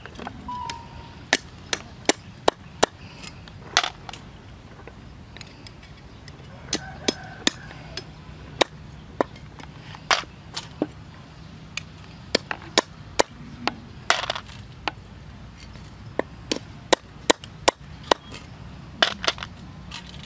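Kitchen knife chopping on a round wooden chopping board: sharp, separate knocks at an uneven pace, sometimes two or three in quick succession.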